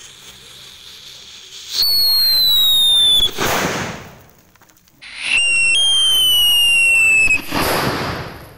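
Whistling King Thunder firework, wrapped in paper and going off inside a hole in the ground: two shots, each a whistle falling slightly in pitch for one and a half to two seconds, ending in a short burst.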